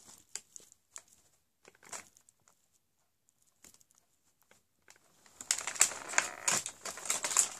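Plastic packaging being handled and crinkled: a few faint scattered clicks and rustles at first, then denser, louder crinkling and crackling from about five and a half seconds in.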